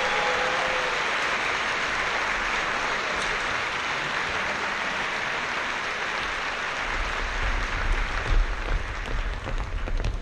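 Audience applauding, with the orchestra's last chord dying away in the first second. From about seven seconds in, dancers' feet thump on the wooden stage floor as they run off.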